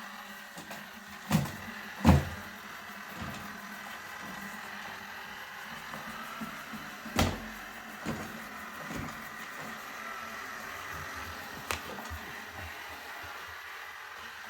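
Roomba robot vacuum running, a steady whir with a thin constant whine, broken by four sharp knocks, two close together near the start.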